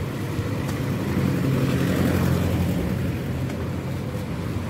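Street traffic: car and motorbike engines passing close by, with one engine growing louder a second or so in and then easing off.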